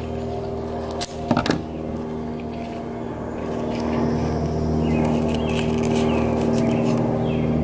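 Slow ambient background music of sustained, droning chord tones that shift about four seconds in, with a few sharp clicks about a second in.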